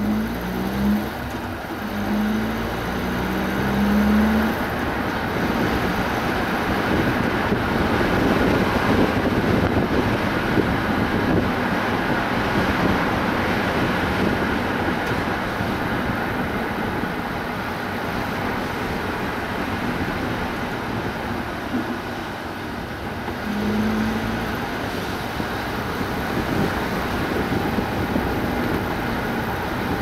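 A car driving along a road: steady tyre and road noise with the engine's hum, the engine note stepping up in pitch over the first few seconds as it gathers speed.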